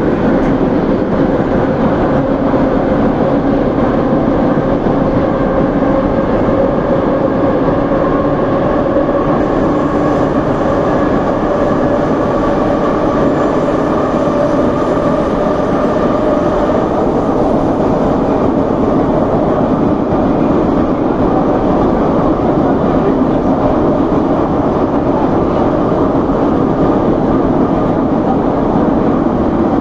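Steady rumble of an 81-717/714 metro train running, heard from inside the car, with a whine that rises slowly in pitch through the first half.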